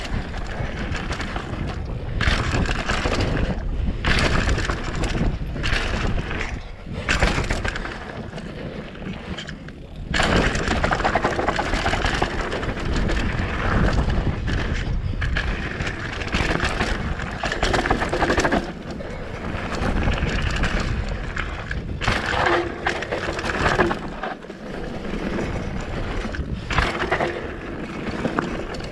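Mountain bike riding fast down a dirt forest trail: tyres rolling over the dirt, and the bike rattling and clattering over bumps, under a steady rush of wind on the microphone.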